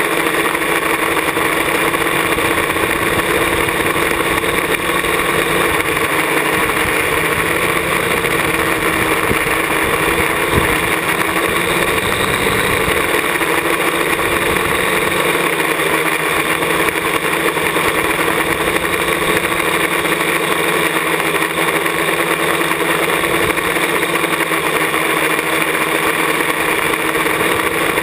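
Parallax ELEV-8 quadcopter's brushless motors and propellers whirring steadily in a hover, heard from a camera mounted on the airframe, with several steady tones held throughout.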